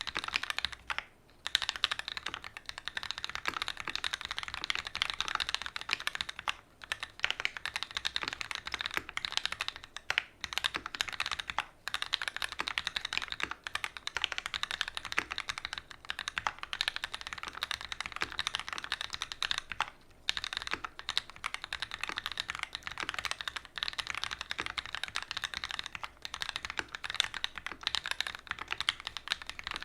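Continuous fast typing on a custom mechanical keyboard with Gateron Ink Black linear switches, an aluminium plate and GMK doubleshot ABS keycaps: dense key clacks with a few brief pauses.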